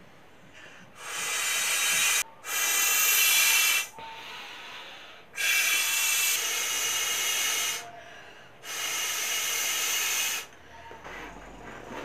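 Air hissing through a vinyl beach ball's valve in four long rushes with short pauses between them.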